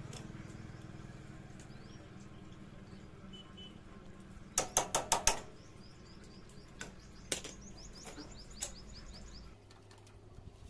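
Pliers clicking on a motorcycle's steel drive chain at the link: a quick run of five sharp metallic clicks about halfway through, then a few single clicks. Birds chirp over a steady low hum that stops near the end.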